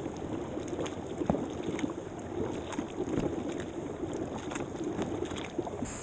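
Kayak paddle strokes on calm water: the blades dip and splash, with irregular drips and small splashes off the paddle and hull. Just before the end it changes to a steady rush of water.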